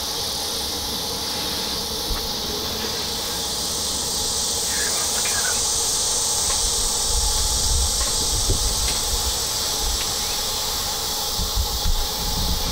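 A steady, high-pitched chorus of crickets and other insects. It swells slightly about three seconds in, with low rumbling underneath in the second half.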